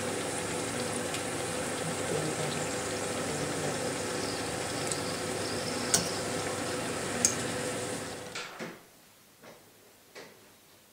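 Fleischkrapfen frying in hot fat in a pan: a steady sizzle, with two sharp clicks of a utensil against the pan about 6 and 7 seconds in. The sizzle stops abruptly about eight and a half seconds in, leaving a few faint knocks.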